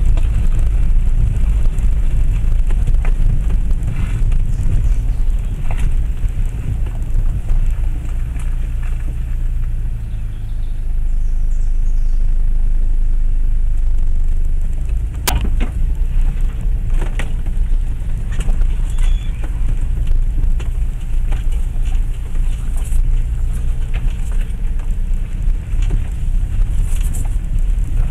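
Cabin of a Land Rover Freelander 1 TD4 diesel driving slowly along a rough, unsurfaced lane: steady low engine and road rumble, with knocks and rattles as it goes over bumps, the sharpest about fifteen seconds in.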